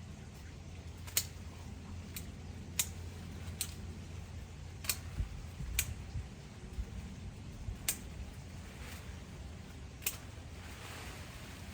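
Hand pruning, with about seven sharp snips and snaps of small branches at irregular intervals over a low rumble.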